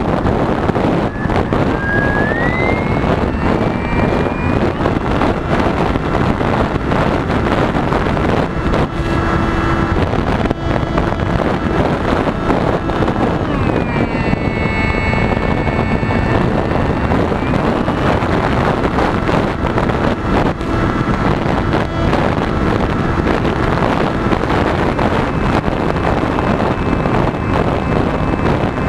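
Heavy wind rushing over the microphone of an RC plane in flight, with the whine of its motor and propeller shifting pitch: rising about a second in and sweeping through a change of speed around the middle.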